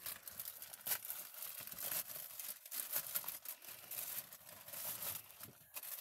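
Plastic mailing bag being torn open and handled, an irregular crinkling and crackling with short tearing snaps.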